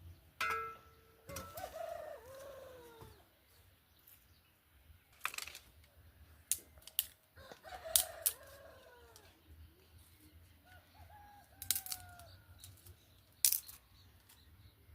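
A rooster crowing three times, each crow about a second and a half long. Several sharp knocks and clatters come in between.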